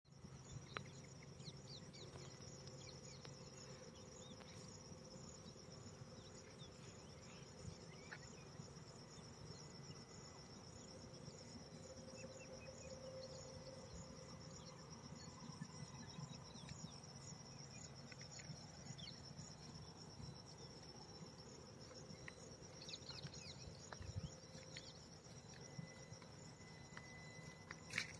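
Faint, steady high-pitched chirring of insects in the grass, with a few small chirps over it and a single sharp click near the end.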